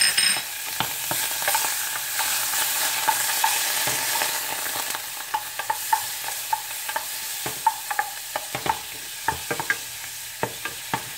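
Butter and garlic sizzling in a small steel saucepan while a wooden spoon stirs them, with frequent light knocks of the spoon against the pan. The sizzle eases off gradually toward the end.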